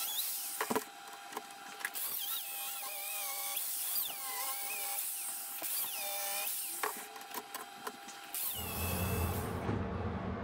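Angle grinder grinding iron, its high whine dipping and rising in pitch as the disc is pressed into the work, with a few sharp clicks. About eight and a half seconds in, it gives way to a steady low rumble.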